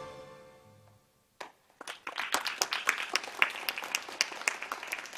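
The last notes of a song ring out and die away, then after a short silence applause begins about two seconds in, many hands clapping.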